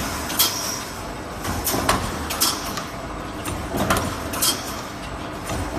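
Automatic wire mesh panel welding machine running: a sharp stroke about once a second as the electrode row comes down and welds a cross wire, several strokes with a short hiss after them, over a steady machine noise.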